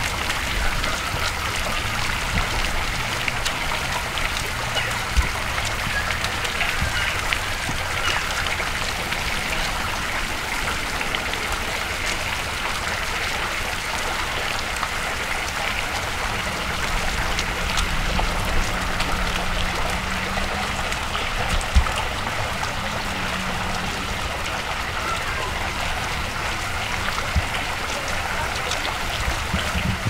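Water from a Coalbrookdale cast-iron tiered fountain's jet spraying and splashing down onto its basins, a steady splashing hiss. Two brief thumps stand out, about five seconds in and again a little past the two-thirds mark.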